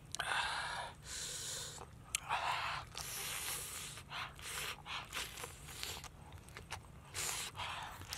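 Mouth sounds of a man biting and chewing small raw fish wrapped in a lettuce leaf: short noisy bursts about once a second, with a few sharp clicks between them.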